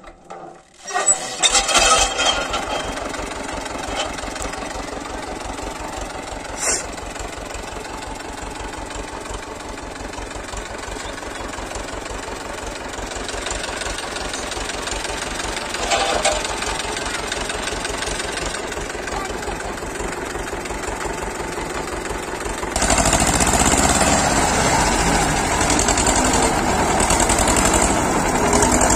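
A roughly 50-year-old Escort tractor's diesel engine, hand-cranked, catches about a second in and settles into a steady idle with an even beat. From about 23 seconds in it runs louder, pulling a disc harrow.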